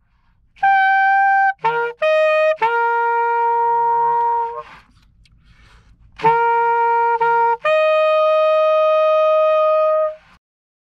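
Alto saxophone playing an overtone exercise: long held notes, a quick run of short notes about two seconds in, and a pause near the middle. The last note breaks off shortly before the end.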